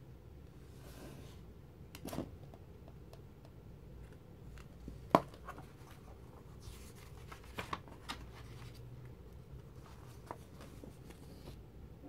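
Glossy magazine pages being handled and turned: scattered soft paper rustles and taps, with one sharp tap about five seconds in, over a faint steady room hum.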